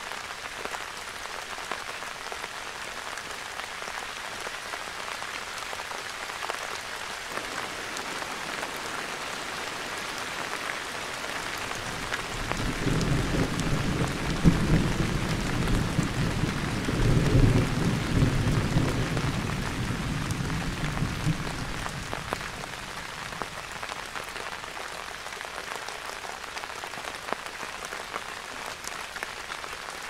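Steady rain falling on trees and foliage, an even hiss of drops. About halfway through, a low rumble swells for roughly ten seconds and then fades, leaving the rain alone again.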